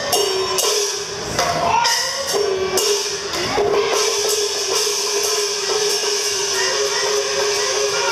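Percussion-led music accompanying a Quanzhou marionette lion fight: drum and cymbal strikes through the first half, then a steady held note over lighter beats.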